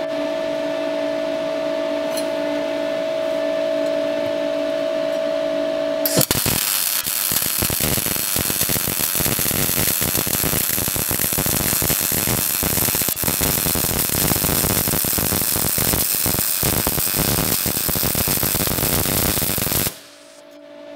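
A steady hum for about six seconds, then a MIG/MAG welding arc strikes and crackles densely for about fourteen seconds while a bead is laid with the torch pushed forward (forehand welding). The arc cuts off suddenly near the end and the hum returns.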